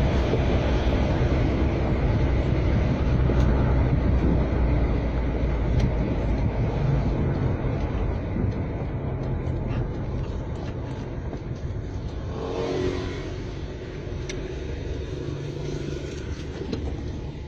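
Car cabin noise heard from a back seat: steady engine and road rumble from a moving car, growing gradually quieter in the second half.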